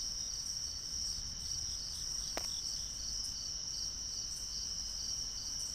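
Crickets chirring in a steady high-pitched trill, with a pulsed chirp repeating a few times a second. One faint click about two seconds in.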